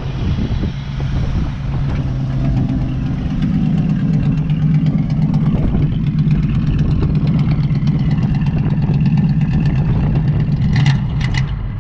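1969 Ford Mustang V8 running with a steady low exhaust note heard at the tailpipes, newly restarted after sitting unused for several years. It grows a little louder a few seconds in and falters near the end, where the engine dies, which is taken for too much throttle.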